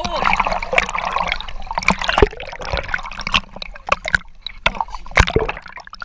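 River water splashing and sloshing against a GoPro held at the surface, with many irregular sharp splashes as the camera dips in and out of the water.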